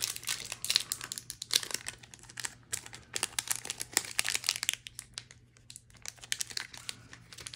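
Wrapper of a Magic: The Gathering Aftermath collector booster pack crinkling and crackling in the hands as it is worked at and tugged to tear it open, a stubborn wrapper that won't give. The crinkling eases off for a moment a little past halfway, then picks up again.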